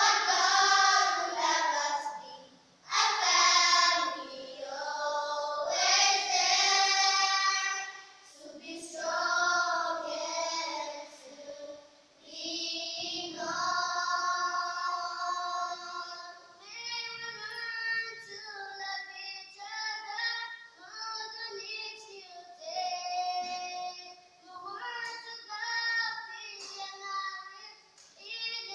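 Group of young schoolgirls singing together in an action song: long held phrases at first, then quicker, shorter notes and somewhat quieter from a little past the middle.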